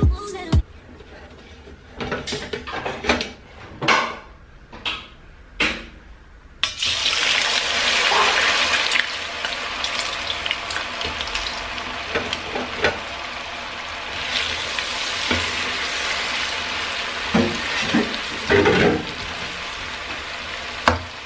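Potato wedges deep-frying in a pan of hot oil. A loud sizzle starts suddenly about six and a half seconds in and carries on steadily. A few knocks of a metal slotted spoon on the pan come before and during it.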